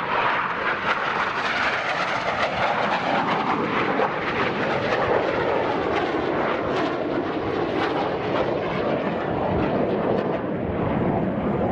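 Jet noise from a Red Arrows BAE Hawk T1's Adour turbofan as it flies past close by and pulls away. The even rush holds steady in loudness, and its pitch sinks gradually as the jet recedes.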